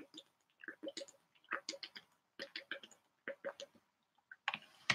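A person drinking long from a bottle: about six soft gulps, one every second or less.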